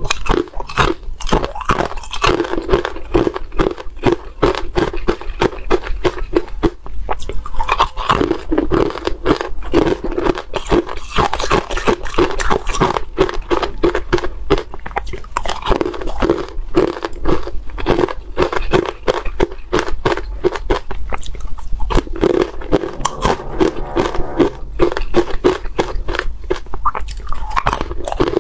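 Close-miked crunching and chewing of hard ice cubes dusted in matcha powder: a dense, rapid run of sharp crunches as the ice is bitten and ground between the teeth.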